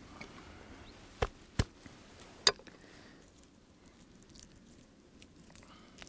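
Kitchen knife knocking three times on a wooden cutting board, about a second in, the last knock the loudest, with faint small clicks and rustles around them.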